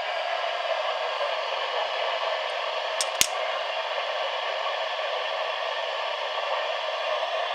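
Steady radio static hiss from a NOAA weather radio receiver on a noisy signal, with two sharp clicks about three seconds in.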